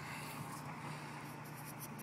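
Quiet background with a steady low hum and a few faint, light scratchy rustles.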